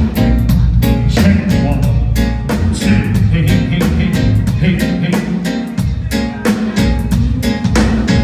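Live reggae band playing an instrumental passage between vocal lines: guitar and drums over a heavy bass line, with a steady beat.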